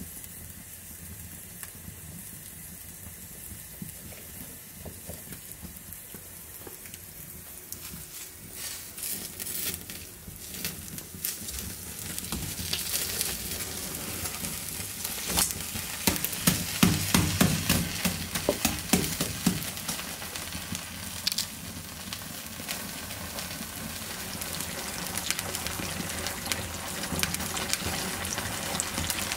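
Chicken legs confiting in hot lard in a cast-iron pan over wood embers: a steady sizzle and bubbling of fat. Sharp crackles and pops join about a third of the way in and are thickest around the middle.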